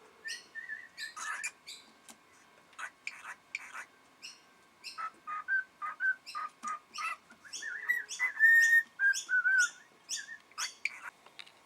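Pet cockatiel chirping and whistling in a run of short notes, busiest in the second half.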